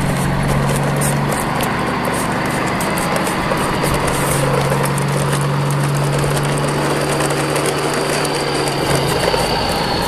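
Hard plastic toy truck wheels rolling and rattling over rough brick pavers as a loaded convoy of toy dump trucks is pulled along, a continuous gritty clatter with many small clicks. A steady low hum runs underneath, dropping out briefly about a second in and stopping near the end.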